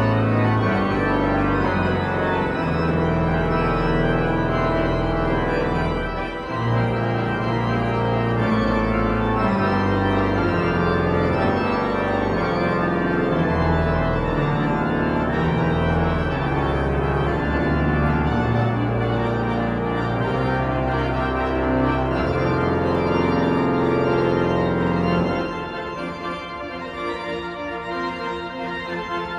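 Pipe organ playing loud sustained chords over deep bass notes. About three-quarters of the way through, the deep bass drops out and the playing turns quieter and lighter.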